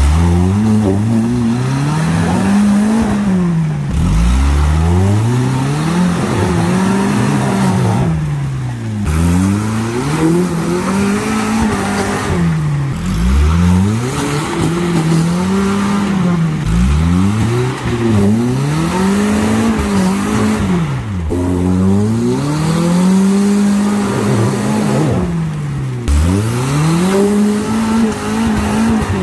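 Suzuki Samurai engine revving hard and dropping back, over and over every few seconds, as the wheels spin in mud trying to climb a steep creek bank.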